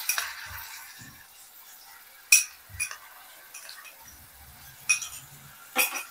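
Steel spoon clinking against a ceramic cup and an aluminium pressure cooker as green masala paste is scraped in. There are a few sharp clinks, the loudest about two seconds in, over a faint hiss of onions frying in oil.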